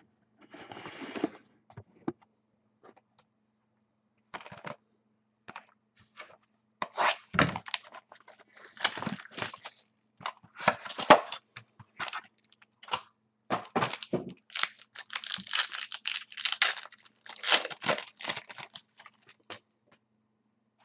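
Plastic wrapping crinkling and tearing and cardboard scraping as a sealed box of Inception football cards is opened by hand: irregular short bursts, loudest about eleven seconds in.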